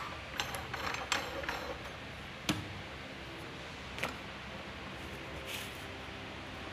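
Iron pipe fittings and a wooden shelf plank being handled during assembly: a quick run of clinks and rattles in the first second and a half, then a single sharp knock about two and a half seconds in and a lighter one about four seconds in.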